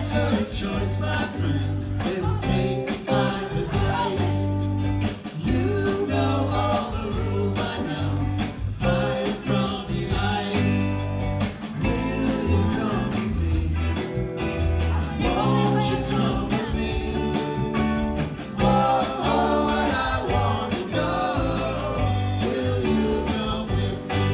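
Live rock band playing with electric guitars, electric bass and drum kit, and a vocalist singing over them.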